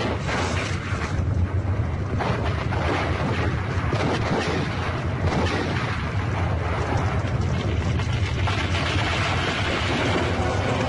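Film soundtrack of a cavalry battle charge: a loud, dense din of battle noise with scattered bangs and booms.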